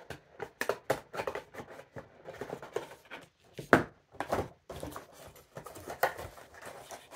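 A cardboard Funko Pop box being opened and its plastic insert slid out: irregular rustles, scrapes and taps of cardboard and plastic packaging, with one sharper click near the middle.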